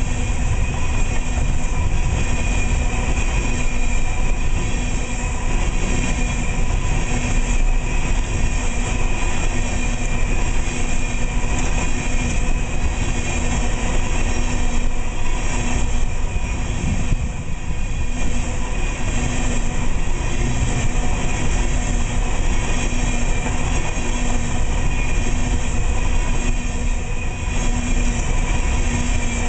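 Empty aluminum coal cars of a freight train rolling past: a steady rumble of steel wheels on rail. Thin steady ringing tones run over it.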